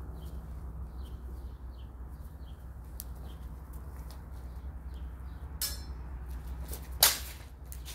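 Broadswords meeting in sparring: a short ringing blade contact about two-thirds through, then one loud sharp strike near the end. Birds chirp repeatedly in the background.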